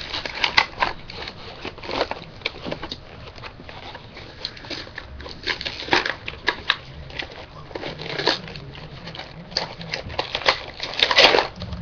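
Toy packaging being opened by hand: irregular crinkling, rustling and small clicks, with a louder flurry near the end.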